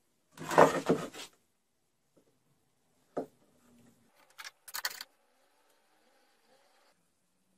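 Workbench handling of a threaded steel rod and a pine block as the rod is fitted into a drilled hole: a loud rubbing scrape about half a second in, a single sharp knock about three seconds in, and a few short high scrapes near the five-second mark.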